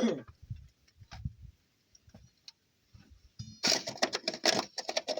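Metal clicking and rattling: a few light clicks, then a dense, irregular clatter in the last second and a half.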